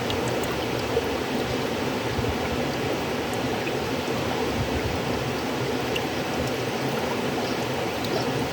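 River water flowing steadily, a continuous rushing with faint droplet ticks and splashes over it.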